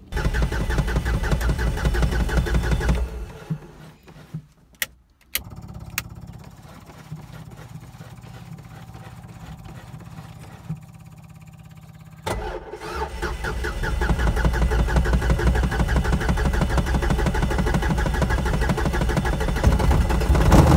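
Four-stroke, three-cylinder Renault Kwid car engine on a Mistral ultralight running loud. About three seconds in it drops away, with a few sharp clicks, to a quieter steady running. About twelve seconds in it comes back up and grows louder toward the end.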